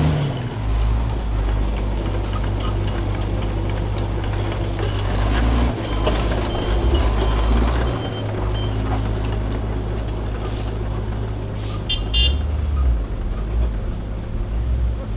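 Heavy truck's diesel engine working hard under load on a climb, its note shifting a few times. A short double horn toot near the end.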